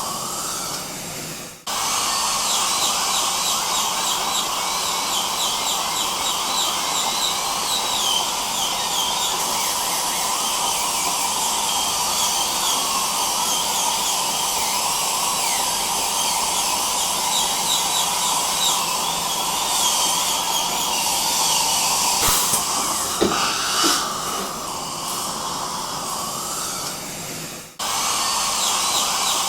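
Dental drill and suction running together: a steady hiss with a steady whine, broken by two short dropouts, one about two seconds in and one near the end.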